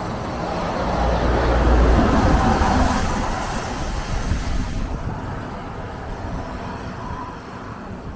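A heavy bulk tanker truck passing on a wet road: engine rumble and tyre hiss swell to a peak about two seconds in, then fade as it drives away.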